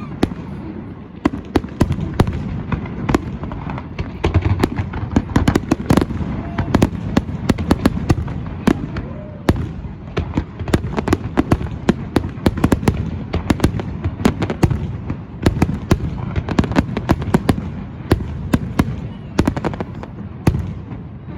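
Fireworks going off: a rapid, unbroken run of sharp bangs and crackles over a low rumble.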